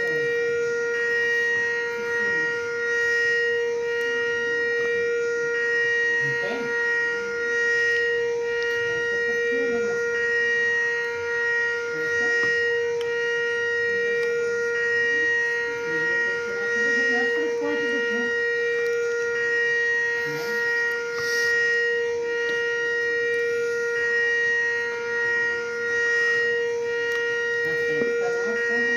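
Siren sounding one long steady tone at constant pitch, with no rise or fall, and faint voices talking underneath.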